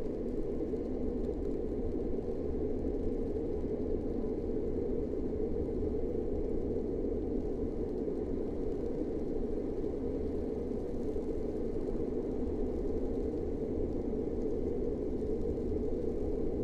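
Steady low rumbling drone, a dark ambient sound-design bed with no melody, beat or change in level.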